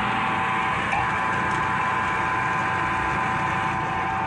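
Smithy CB-1239 mill-drill-lathe's mill running at speed: its electric motor and open belt-and-pulley drive turning steadily, a steady whine over a low hum.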